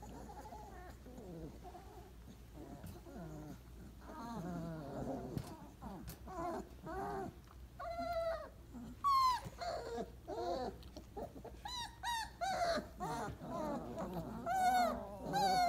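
Four-week-old Weimaraner puppies whimpering and whining: short high cries, many falling in pitch. They come more often and louder from about six seconds in.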